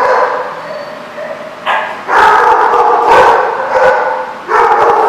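Dogs barking and yipping, getting loud about two seconds in, dipping briefly, then barking again near the end.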